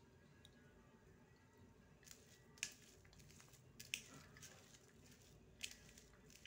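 Faint squishing of a hand mixing mashed potato and chopped onion in a steel plate, with a few soft ticks in the second half.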